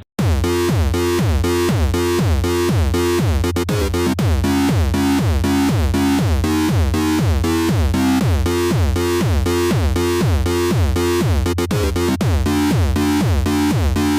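Loud electronic dance music with a fast, steady drum-machine beat, each kick falling in pitch, under layered synthesizer notes; it starts abruptly.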